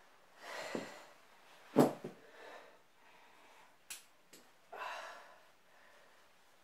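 A woman breathing hard after a workout, with long heavy exhales near the start and again about five seconds in. A short louder sound comes about two seconds in, and a sharp click about four seconds in.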